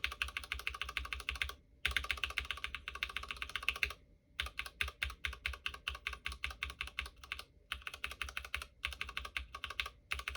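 Mechanical keyboard key with a spray-lubed Cherry MX Brown tactile switch being pressed rapidly over and over, in several quick runs of clacks with brief pauses between. To the tester it sounds no different from an unlubed Brown, with no smoothing of the switch's scratchiness.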